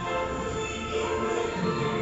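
Background music with sustained notes.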